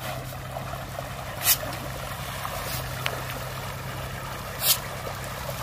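A shoal of pond fish thrashing and splashing at the surface in a feeding frenzy, with two short splashy hisses, about a second and a half in and near the end, as scoops of feed pellets hit the water. A motor hums steadily underneath.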